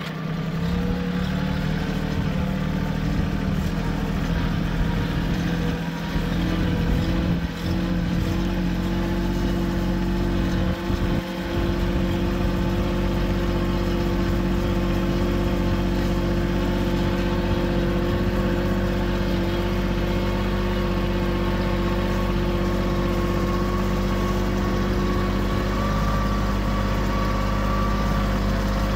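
Compact diesel tractor engine running steadily as the tractor drives along with a loaded front-loader bucket. The sound dips briefly a few times in the first half.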